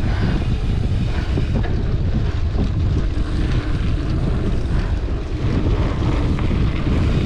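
Wind rushing over the microphone of a camera riding on a fast-moving mountain bike, with the steady rumble of tyres on a dirt forest road.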